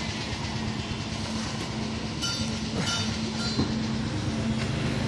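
Steady low engine drone with a constant hum, and a few brief faint high tones about two seconds in.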